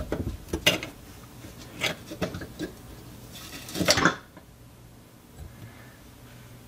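Light metallic clicks and scrapes from hands gripping and twisting a chrome pop-up drain tailpiece under a bathroom sink, which is stuck and won't unscrew. A louder cluster of clicks comes about four seconds in.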